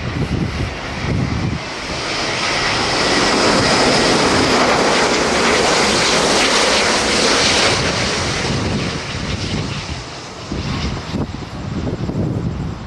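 Jet airliner passing close by, its engine noise swelling to a peak and then fading away, with a faint high whine at the loudest point. Low wind rumble on the microphone comes and goes at the start and end.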